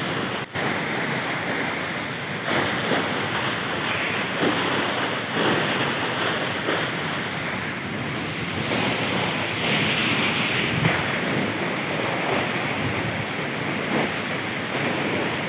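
Steady rushing noise of a waterfall mixed with wind buffeting the microphone, with a brief dropout about half a second in.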